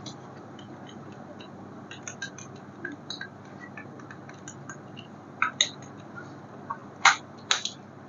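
Scattered small clicks, taps and light scrapes of hard plastic being handled, such as a toy car and its packaging, with a few sharper clicks near the end.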